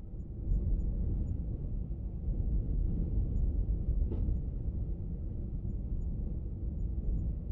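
A low rumbling noise that gets louder about half a second in and holds, with one brief faint tick around four seconds in.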